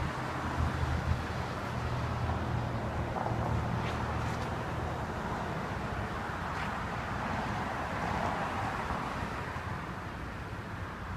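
Steady street ambience: a low, continuous rumble of road traffic, with a few faint ticks.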